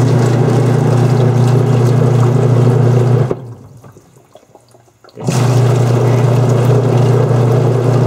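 Arduino-controlled washing machine running a timed step: water rushing with a strong low mains hum for about four seconds, cutting off for about two seconds, then starting again. The four-on, two-off rhythm is the programmed cycle timing.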